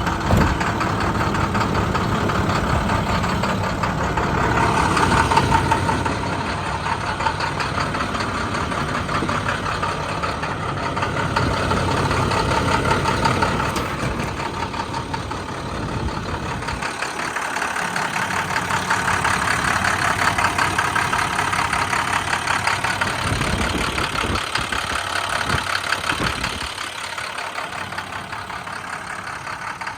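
International 4300's MaxxForce DT diesel engine idling steadily just after a cold start.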